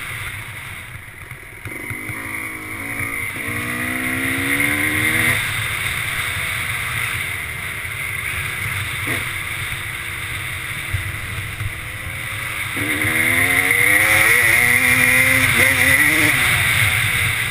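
Honda 250cc two-stroke off-road engine accelerating up through the gears, revs climbing and dropping back at each shift, over wind buffeting the helmet-mounted microphone. Two runs of upshifts, with a steadier cruise between them.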